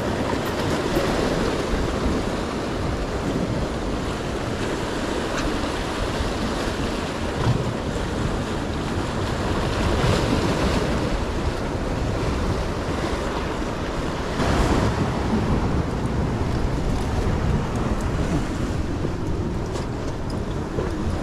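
Sea surf surging and breaking against the boulders of a rock jetty, a steady rush with louder surges about ten and fifteen seconds in, with wind buffeting the microphone.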